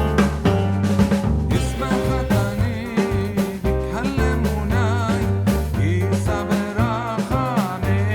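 Upbeat background music with drums and a melody that includes wavering, vibrato-like notes.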